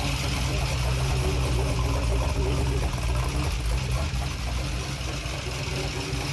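Rebuilt GM LM7 5.3-litre LS V8 on an engine test stand, idling steadily on its first run after the rebuild.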